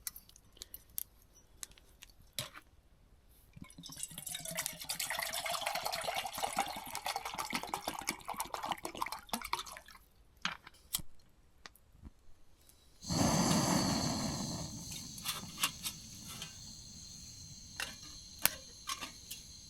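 Small clicks and knocks of handling, then water pouring for several seconds, rising in pitch as the container fills. About 13 seconds in, a sudden loud hiss starts and fades to a steady hiss with a high whine.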